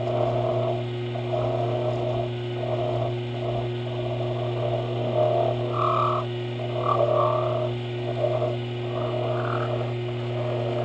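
Sherline metal lathe running with a steady motor hum while a round hand file rasps in uneven strokes against the spinning brass stock.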